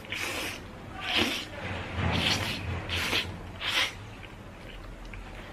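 Close-miked eating of wide biangbiang noodles: about five short, hissy slurps a second or less apart, with chewing between them.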